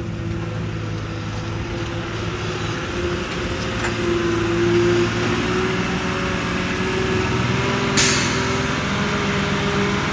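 Truck's diesel engine running steadily, with a brief sharp hiss of the air brakes about eight seconds in.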